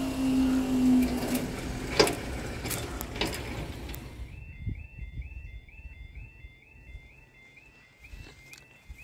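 A faint UK level-crossing warning alarm yodelling over and over, about two cycles a second, marking the start of a barrier closure. It begins after an abrupt cut about four seconds in. Before that, outdoor noise with a hum that fades out within the first second or so and a sharp knock about two seconds in.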